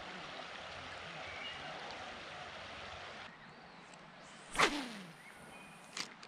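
A fishing rod swishes through the air on a cast a little past halfway, one sharp whoosh with a falling tail, followed about a second and a half later by a short sharp snap. Before it, a steady rush of moving creek water fills the first three seconds, then drops away.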